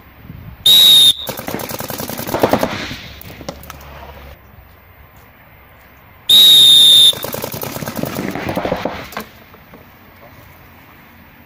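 Twice, a short, loud, high-pitched signal tone, each time followed at once by about two seconds of rapid paintball marker fire, many shots a second, that then dies away.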